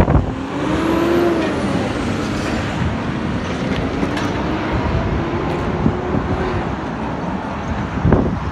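Road traffic passing close by: a motor vehicle's engine, its pitch rising and falling twice, over steady road noise. Wind buffets the microphone at the start and again near the end.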